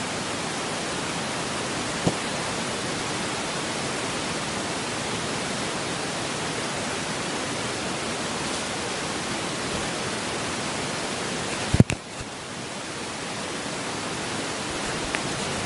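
Steady, loud hiss of noise across all pitches, broken by a short click about two seconds in and a sharper knock about twelve seconds in. After the knock the hiss drops away briefly and then builds back up.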